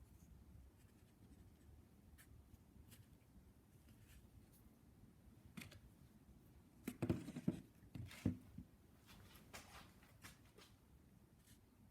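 Faint scattered clicks, then a short cluster of knocks and rattles about seven seconds in: small parts and hand tools being handled during a brush cutter carburetor overhaul.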